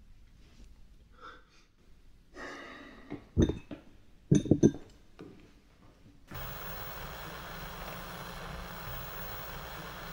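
Heavy, frightened breathing, then a knock and a quick run of loud clinks and knocks. About six seconds in, a steady electrical buzz with hiss cuts in suddenly.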